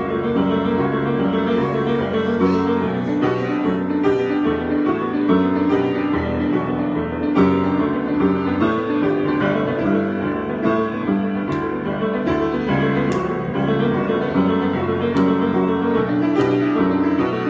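Solo piano improvisation: sustained chords with a moving melody over them, played continuously, with a few faint clicks in the second half.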